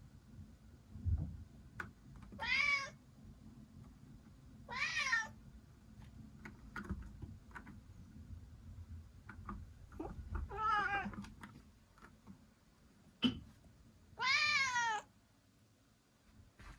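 A domestic cat meowing four times, a few seconds apart, the last call the longest. A sharp tap comes a second before the last meow.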